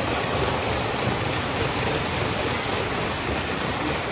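O gauge model passenger train rolling past on three-rail track: a steady, even noise of metal wheels running on the rails.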